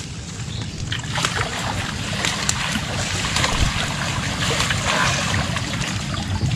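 Water sloshing and splashing, with many small drips and splashes, over a steady low rumble.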